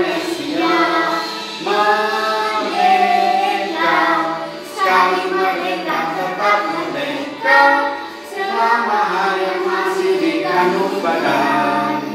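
A girl singing a song into a handheld karaoke microphone over backing music, with a second child's voice joining in at times.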